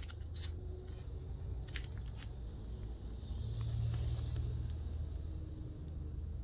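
Comic books in plastic sleeves being handled: the bags crinkle and rustle, with a few sharp clicks in the first two seconds, as one comic is pulled from the stack and held up, over a low steady hum.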